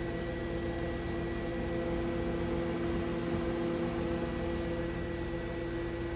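GE Hotpoint refrigerator's newly replaced condenser fan motor running with the fan blade on, a steady hum and whir with a few constant tones.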